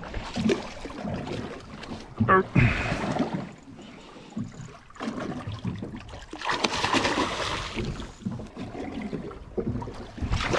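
Water sloshing and splashing at the side of a small boat as a hooked rainbow runner is brought alongside to be gaffed, with two louder bursts of splashing about two and a half and seven seconds in.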